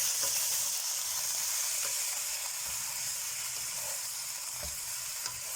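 Leeks and tofu sizzling in a hot pan just after a splash of water has gone in, a steady hiss with a few faint knocks from stirring.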